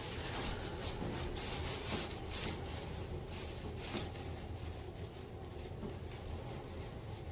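Faint rustling and soft clicks of hands and clothing moving on a treatment table during a manual chiropractic adjustment, over a low steady room hum.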